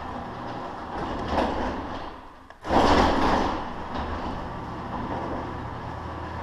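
Chain-drive garage door opener running the door along its track with a steady motor hum and rattle; the sound drops out briefly about two and a half seconds in and starts again loudly. The opener's drive chain is loose.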